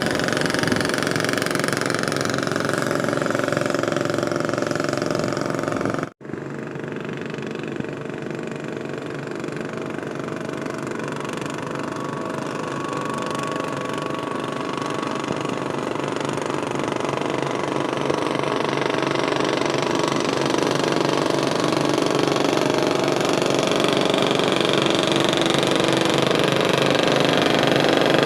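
A traditional fishing boat's engine running steadily as the boat passes. The sound cuts out for a moment about six seconds in, then grows gradually louder toward the end as the boat comes closer.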